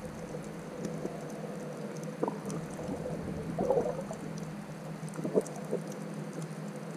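Muffled underwater ambience, a steady hiss, with a few short bubbling gurgles about two, three and a half, and five and a half seconds in.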